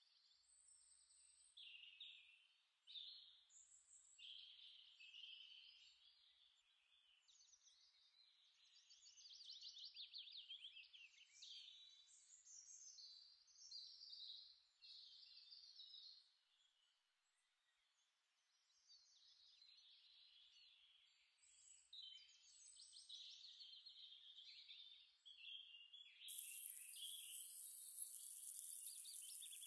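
Faint birdsong: repeated chirps and rapid trills from small birds, with a short lull in the middle. Near the end a steady high hiss sets in.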